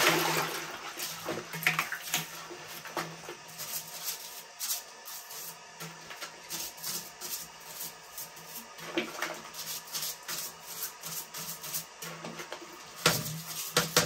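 Toilet brush scrubbing inside a toilet bowl, its bristles swishing through the water and scraping the porcelain in quick, irregular strokes, as the last of a flush fades away at the start.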